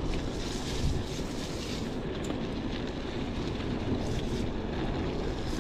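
Steady rush of wind buffeting the microphone, mixed with the rolling and light rattling of a Huffy Good Vibrations klunker bicycle on a dirt trail.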